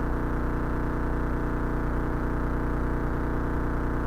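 Cessna 172 Skyhawk's piston engine and propeller running steadily in the cockpit: an even drone of several steady tones with no change in pitch or level.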